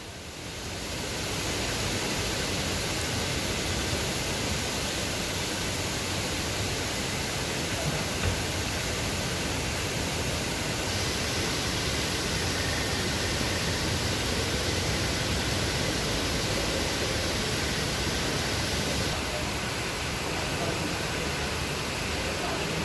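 Heavy rain pouring steadily as a dense, even hiss that swells up over the first second or two.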